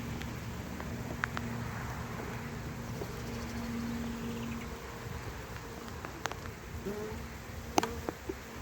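Honeybee swarm buzzing in a steady hum. A few sharp knocks come in the last couple of seconds.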